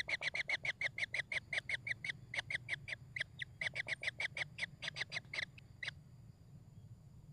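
Kingfisher calling in a fast, even series of sharp notes, about six a second, that stops about six seconds in.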